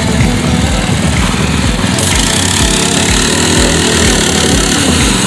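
Small single-cylinder gas engine of an MB200 mini bike running, its engine speed rising and falling back about halfway through.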